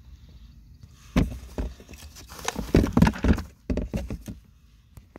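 A run of irregular knocks, clicks and rustling, dense from about one second in to past four seconds, with a few more clicks at the very end.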